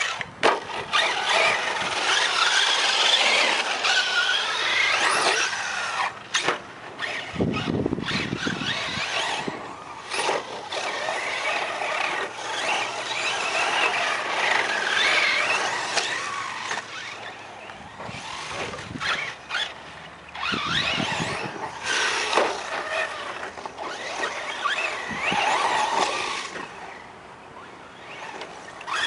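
Electric RC truck on a 4S LiPo, its motor whining up and down in pitch with the throttle as it drives over dirt and gravel, with tyre and gravel noise and scattered short thuds from jump landings.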